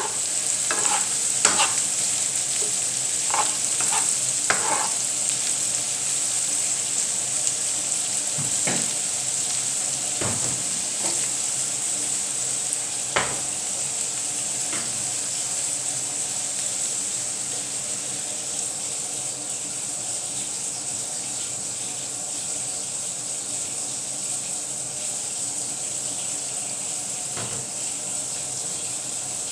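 Egg and vegetable omelette frying in a pan, a steady sizzle, with a utensil clicking and scraping against the pan several times in the first few seconds and a few more times later.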